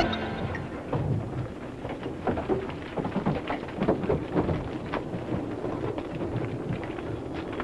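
A heavy truck rumbling down a steep, rocky slope, with loose stones and gravel crackling and clattering under it.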